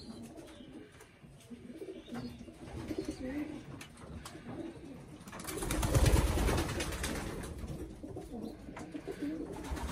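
Racing pigeons cooing in a loft, with a louder rustling rush from about five and a half seconds in.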